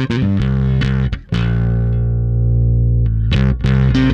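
Electric bass played through an EarthQuaker Devices Blumes Low Signal Shredder pedal set to its middle mode with the tone knob full up. A quick run of picked notes is followed by one note held for about two seconds, then more picked notes about three seconds in.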